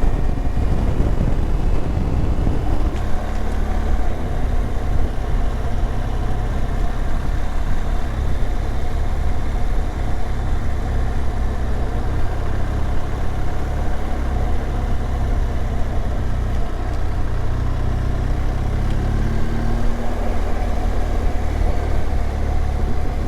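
BMW R1200GSA's boxer-twin engine running steadily on the move, with wind rush over the rider. The engine note shifts a little about three-quarters of the way through.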